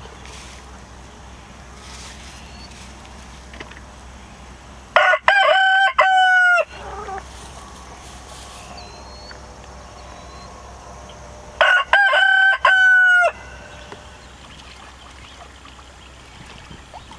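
A rooster crowing twice, about six and a half seconds apart; each crow is a loud cock-a-doodle-doo of a few linked parts lasting about a second and a half.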